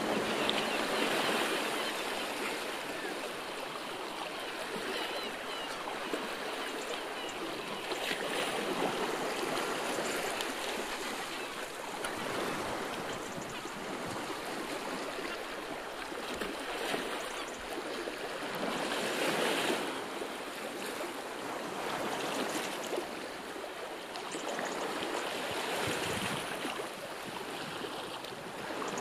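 Rushing water, a steady hiss that swells and eases every several seconds.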